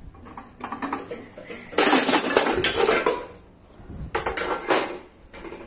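Metal cooking vessels clanking and rattling as they are handled and stacked: pressure cookers, a large bowl and ladles. There is a long, loud spell of clatter, then a shorter one about four seconds in.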